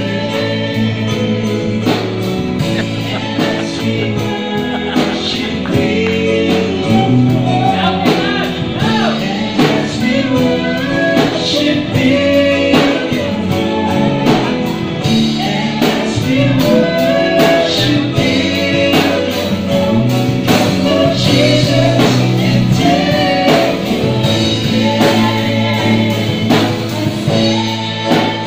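Live worship band playing a gospel song: singing over keyboard, electric guitar and drum kit.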